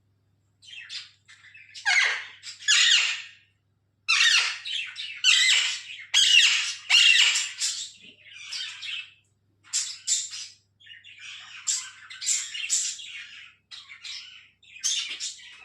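Alexandrine parakeet calling: a series of harsh squawks, separated by short pauses.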